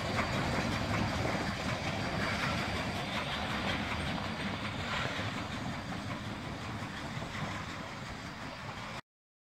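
Southern Railway 401 steam locomotive and its coach rolling along the track, the wheels clicking over the rails. The sound grows gradually fainter, then cuts off abruptly about nine seconds in.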